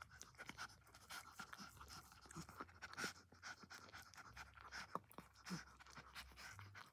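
Faint panting from a mother dog just after whelping, with soft wet clicks of her licking and cleaning the newborn puppy.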